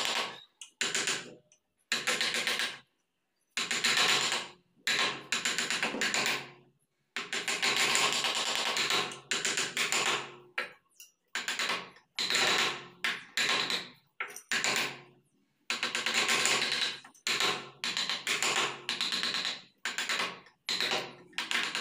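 Wooden mallet tapping a carving chisel into the wood of a door frame. The taps come in rapid runs of about a second each, with short pauses between.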